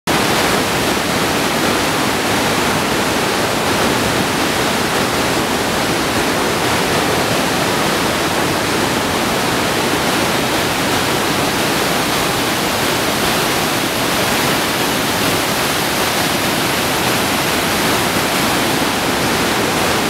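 The Rhine Falls, a large river waterfall, pouring over rocks in a loud, steady rush of water.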